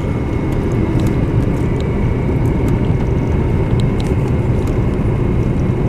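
Steady rumble of a car's engine and tyres while driving at a low, even speed of about 50 km/h, heard from inside the cabin.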